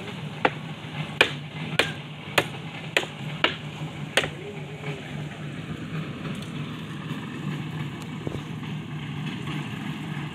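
Seven sharp, evenly spaced knocks, about one every 0.6 s, over a steady low engine hum; the knocks stop about four seconds in while the hum carries on.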